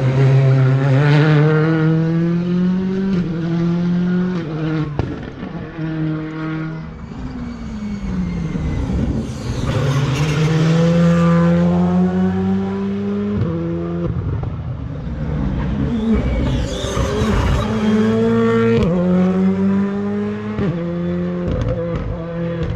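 Rally car engine at full throttle, accelerating hard through the gears. Its pitch climbs and drops sharply at each upshift, several times in a row, as the car passes.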